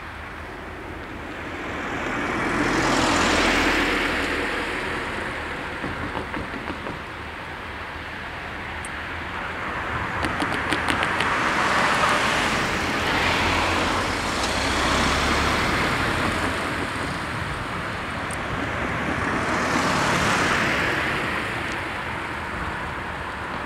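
Cars driving over the level crossing one after another, each one's tyre and engine noise swelling as it nears and fading as it goes. A short run of clicks comes about ten seconds in.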